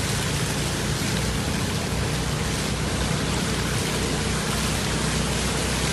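Steady rushing and splashing of floodwater churned up by a vehicle moving through a flooded street, with a steady low engine hum underneath.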